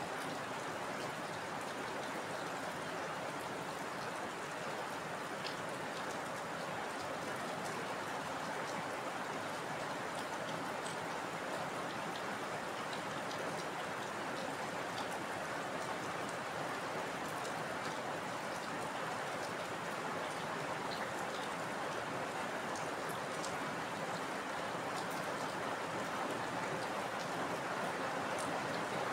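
Steady heavy rain falling: a dense, even hiss with scattered small drop ticks.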